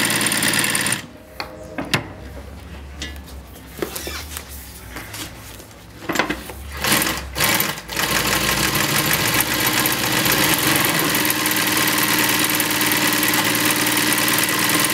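AtlasUSA AT2153 industrial zigzag sewing machine stitching through webbing. It runs at speed for about a second, then stops, leaving a low hum. A few short runs come around six to seven seconds in, and from about eight seconds in it sews steadily.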